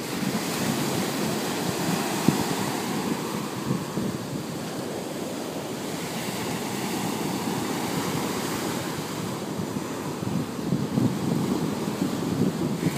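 Ocean surf washing onto a beach, a steady wash that swells and eases, with wind buffeting the microphone.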